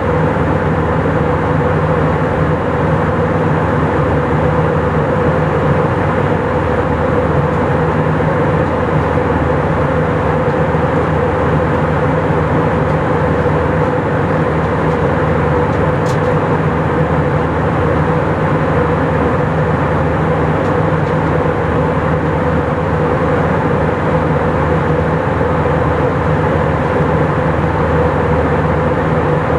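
Steady cabin drone of an Airbus A319 in flight: engine and airflow noise carrying a constant hum, unchanging throughout.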